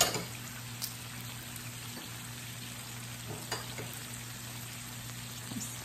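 Pork belly, pork shoulder and Spam sizzling steadily on an electric raclette grill plate, a soft even hiss over a low hum. A sharp click of metal chopsticks at the start and a few fainter clicks later.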